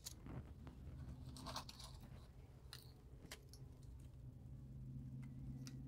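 Faint, scattered clicks and light rattling of small craft pieces handled on a tabletop, over a low steady hum.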